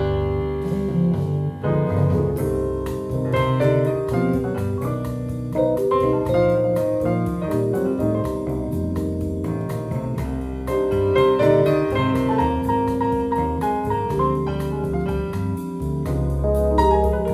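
Jazz piano music played from a vinyl record through a moving-coil phono cartridge: a busy run of piano notes and chords over low bass notes.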